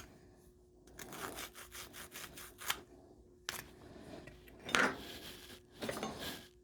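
Copper plumbing being scrubbed clean with an abrasive before flux and solder, in runs of quick back-and-forth scraping strokes broken by short pauses.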